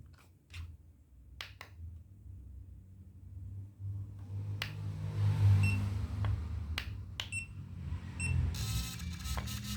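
A few sharp clicks, then three short high beeps. About eight and a half seconds in, the VSC MP-80 portable thermal receipt printer starts printing with a rapid, buzzing chatter from its print head and paper feed.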